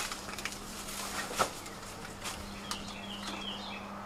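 Footsteps crunching and snapping on leaf litter and debris, with a few short bird chirps about three seconds in, over a faint steady low hum.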